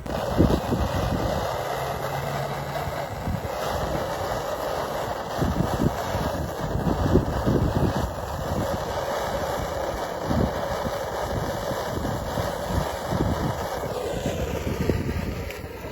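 Soldering torch flame hissing steadily while a seam on a copper downspout is soldered, with wind buffeting the microphone.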